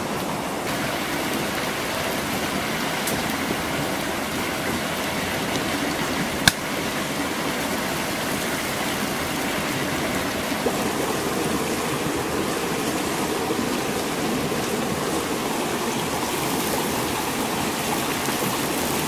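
Shallow creek rushing steadily over rocks, with one sharp click about six and a half seconds in.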